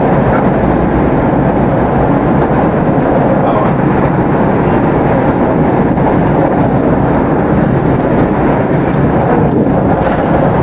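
Class 387 electric multiple unit running at speed, heard from inside the passenger carriage: a steady, even noise of wheels on rail and running gear.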